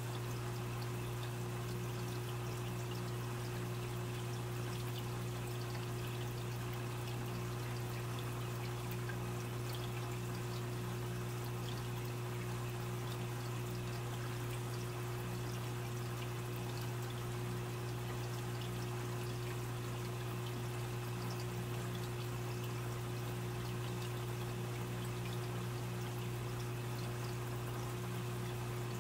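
Aquarium filter running: a steady trickle of water splashing back into the tank over a constant low electric hum.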